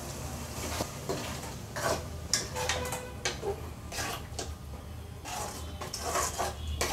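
Perforated steel ladle scraping and clinking against an aluminium kadai while stirring water into a thick masala gravy, in irregular strokes.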